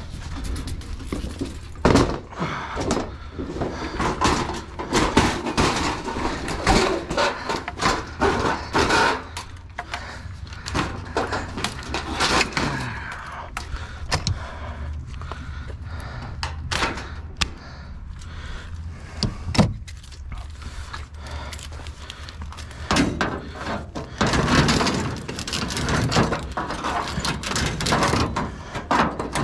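Scrap being handled and pulled apart: irregular knocks, clunks and rattles, with a few sharp louder hits, over a steady low rumble.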